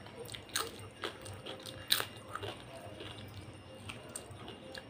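Close-up eating sounds: chewing a mouthful of rice congee and potato chips, with several sharp crunches and clicks, the loudest about two seconds in.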